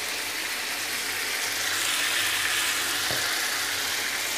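Chicken pieces sizzling in oil and their own juices in a karahi, a steady hiss, with one light knock about three seconds in.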